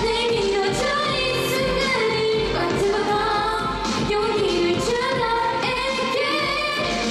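K-pop girl-group dance track with a beat, a woman singing the melody into a handheld microphone over it.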